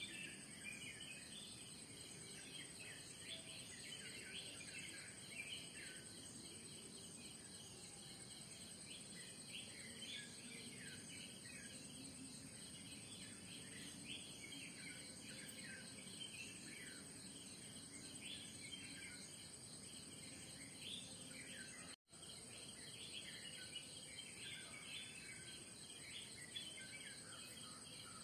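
Morning bird chorus: many small birds chirping and calling in quick, overlapping short notes over a steady, high-pitched insect drone of crickets or cicadas. The whole sound drops out for an instant about three-quarters of the way through.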